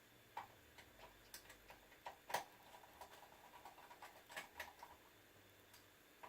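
Faint, irregular small clicks and ticks of a screwdriver driving the small screws back into the laptop's memory cover, one louder click about two and a half seconds in.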